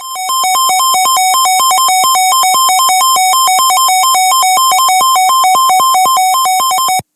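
Electronic emergency alert tone warbling between two pitches about five times a second, with a click at each change, for about seven seconds before cutting off. It is the alert signal heralding a severe thunderstorm warning broadcast.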